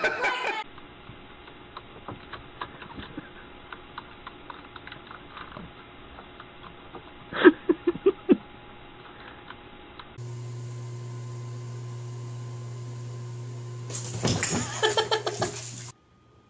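Computer keyboard being typed on: many light key clicks, with a short run of louder, rapid knocks about halfway through. In the last part, a steady low electrical hum comes in, and a brief pitched call sounds over it near the end.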